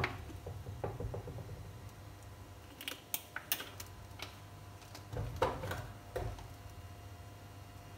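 Scattered light clicks and taps, with a cluster of sharp ones about three seconds in and another around five to six seconds, over a low steady hum: small kitchen handling noises around a stainless wok heating cooking oil on a glass cooktop.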